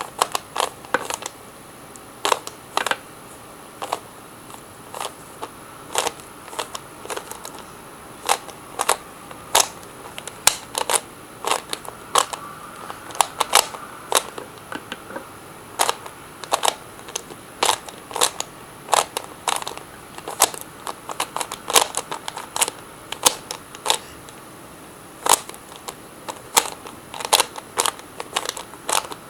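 Plastic Rubik's Cube being twisted by hand, its layers turning with sharp, irregular clicks and clacks that often come in quick clusters.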